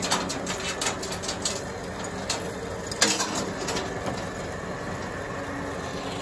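An engine idling steadily under scattered sharp metallic clicks and clanks of a tow chain and hook being handled, several in the first second and the loudest about three seconds in.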